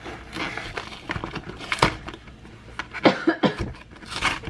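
A cardboard frozen-pizza box being pried and torn open by hand: the cardboard rustles and scrapes, with a few sharp clicks and snaps.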